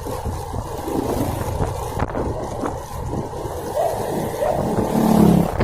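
Motor vehicle running in road noise, a dense low rumble throughout, with a brief pitched sound about five seconds in.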